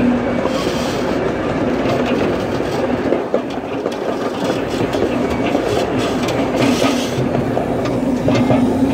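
Miniature ride-on railroad train rolling along its track: a steady rumble and clatter of the cars' wheels on the rails, with clicks from the rail joints.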